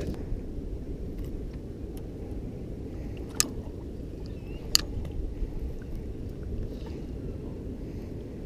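Steady low rumble of wind and water around a small fishing skiff drifting at sea, with two sharp knocks about a second and a half apart near the middle.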